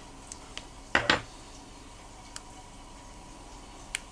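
Small metallic clicks of steel tweezers and a watch movement being handled and set down, with a sharp double clack about a second in and a few light ticks after.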